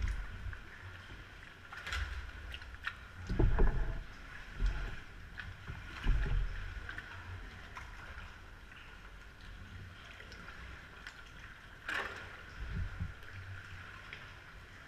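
Sea kayak paddling through a sea cave: irregular paddle splashes and water sloshing against the hull. There are a few dull low thumps, and two sharper splashes about two seconds in and near the end.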